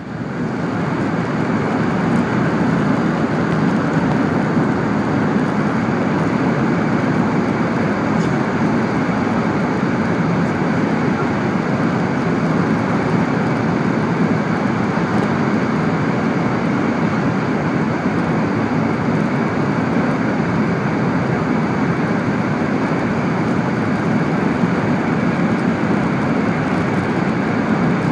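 Steady running noise of a Sanyo Shinkansen Sakura bullet train travelling at speed, heard from inside the passenger car: a dense rumble that jumps sharply louder within the first second and then holds steady.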